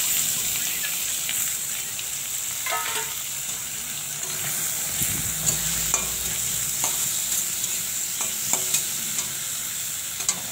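Prawns, onions and chillies sizzling in a hot metal kadai while a metal spatula stirs them, with a few sharp scrapes and taps of the spatula against the pan.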